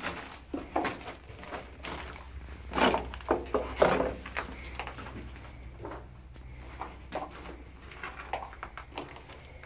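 Footsteps scuffing and crunching over a rubble-strewn floor inside a concrete bunker, with irregular knocks and scrapes, heaviest a few seconds in and thinning toward the end.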